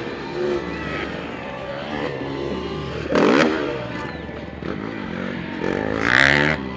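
Motocross bike engines revving up and down as riders race on the dirt track, with two louder swells, about three seconds in and near the end.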